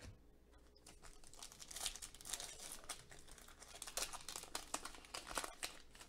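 Foil wrapper of a Leaf Draft football card pack crinkling with irregular crackles as hands handle it and tear it open.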